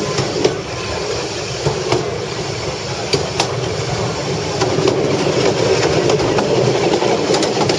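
Railbus running along the track: a steady rumble of wheels and engine, with a few sharp clicks over rail joints in the first half and slightly louder running from about halfway.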